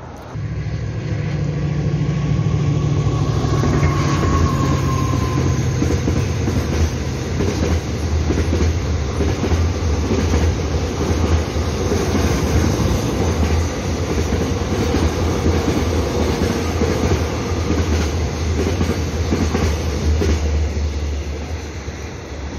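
Container freight train passing close by: a loud, steady rumble and clatter of wagon wheels on the rails that starts suddenly and fades near the end.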